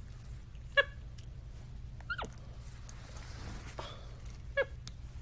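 Pet capuchin monkey giving three short, high squeaks, each falling in pitch, spaced a second or two apart.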